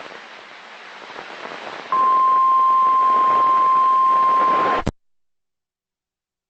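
NOAA Weather Radio warning alarm tone, the steady 1050 Hz alert tone, heard over radio static. About two seconds of hiss come first, then the tone holds steady and cuts off suddenly about five seconds in, leaving dead silence as the station's signal drops out.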